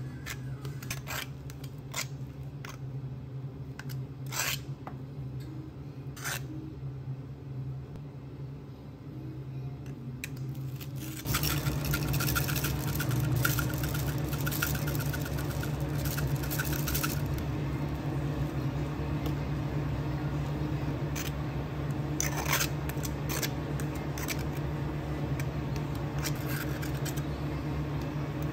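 Cafe counter work: scattered clicks, taps and handling noises of utensils and containers over a steady machine hum, which steps up louder about eleven seconds in.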